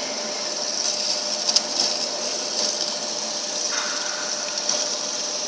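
Şahinler metal-cutting band saw running, a steady hum with a high hiss. The sound grows harsher a little before four seconds in, and there are a few light clicks.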